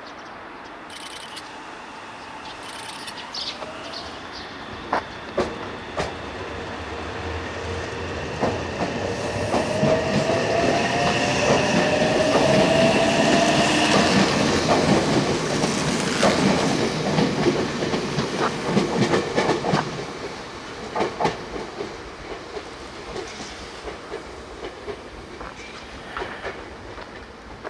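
Electric limited-express train pulling out of a station and passing close by. Its wheels clack over the rail joints and a rising whine is heard as it picks up speed; it grows loud, then fades as it moves away with scattered clacks over the points.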